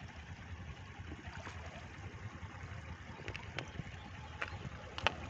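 Small splashes and trickling of water as hands work a cast net under shallow pond water, with a few sharper splashes in the second half, the loudest near the end. A steady low wind rumble on the microphone lies underneath.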